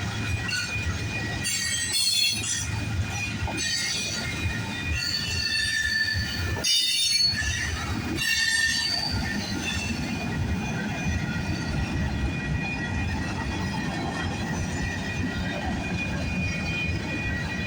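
Freight train cars rolling past, a steady rumble of wheels on the rails with several short high-pitched wheel squeals in the first half.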